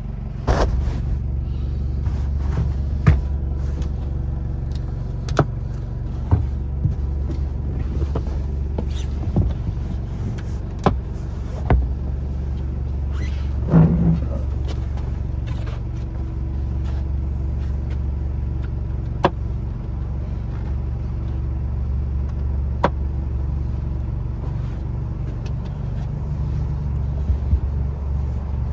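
Steady low engine hum, with scattered knocks and clicks as padded bed cushions on wooden frames are lifted and folded down.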